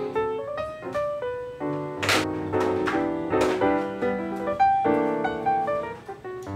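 Background music led by a piano melody.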